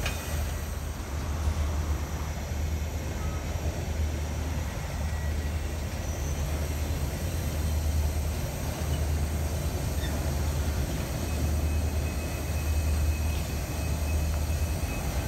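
Freight train cars rolling past, a boxcar followed by autorack cars: a steady low rumble of wheels on the rails that swells and eases.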